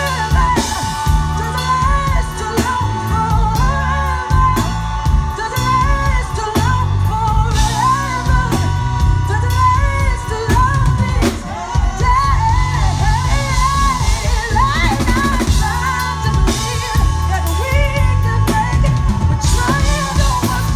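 Live R&B band with drum kit and bass playing under a woman's soulful lead vocal, which sings long runs that bend up and down in pitch, with backing singers joining in.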